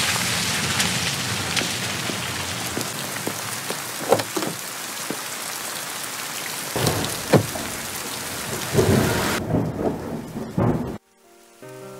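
Steady heavy rain pouring down, with a few short rumbles of thunder. About a second before the end the rain cuts off, and soft music begins.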